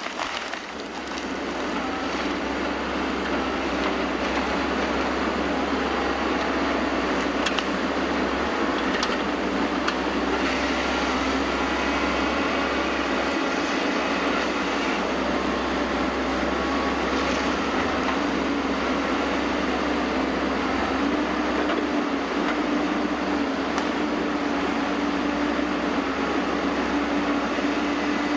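Forestry harvester running under load as its head works a tree: a steady diesel drone with a high hydraulic whine over it, building up over the first couple of seconds.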